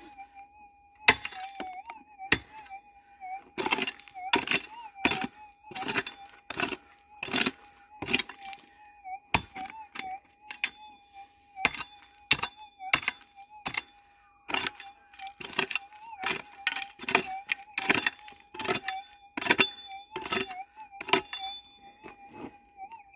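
A digging pick repeatedly striking into stony gravel, sharp clinking hits about one or two a second, digging down on a metal detector target. Under the strikes a gold detector's threshold hum runs steadily with a slight waver.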